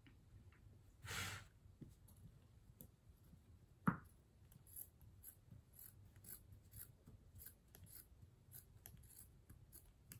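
Scissors cutting through t-shirt fabric: a run of faint short snips about twice a second through the second half. A brief rustle of the cloth comes about a second in, and a single sharp knock, the loudest sound, about four seconds in.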